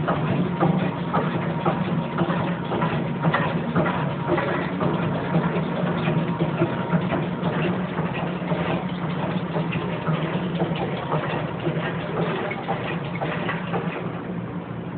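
Dunkley SSP3000 cherry pitter running a dry cycle, empty of fruit and with its guards off: a steady motor hum under a busy, continuous clatter of rapid mechanical clicks.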